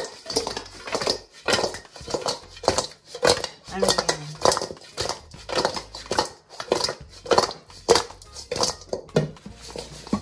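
Metal utensils repeatedly clinking and scraping against cookware, about two knocks a second, as fried ribs are turned and coated in sticky sauce.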